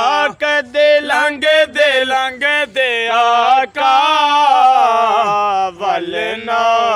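A man's voice singing a Punjabi naat unaccompanied, drawing out ornamented notes that waver up and down, broken by short breaths.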